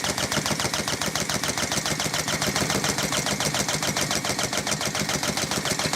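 Small two-stroke chainsaw engine being spun over continuously at a steady fast rate, a rapid even clatter of about nine or ten compression pulses a second, without ever catching or firing.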